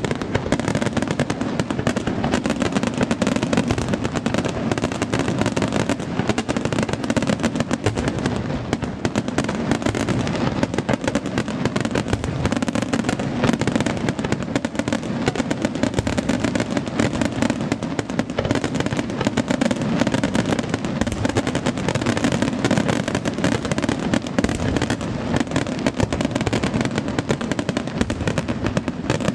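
Aerial fireworks display: a dense, unbroken barrage of shell bursts and crackle, many bangs overlapping every second.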